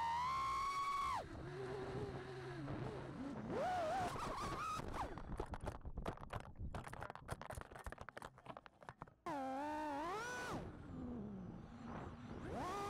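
FPV freestyle quadcopter's brushless motors (2306.5, 1850KV) whining, the pitch rising and falling as the throttle is worked, with choppy crackling and near-dropouts in the middle.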